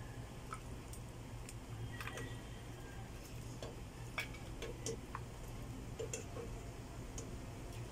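Wooden spoon knocking lightly against a stainless steel pot and a glass dish while pieces of pork and vegetable are ladled out, a few scattered soft clicks and clinks over a low steady hum.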